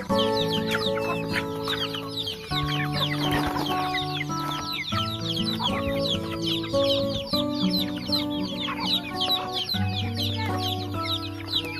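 A flock of chickens calling all together: many short, high peeps, each falling in pitch, overlapping several times a second. Background music with long held chords plays underneath.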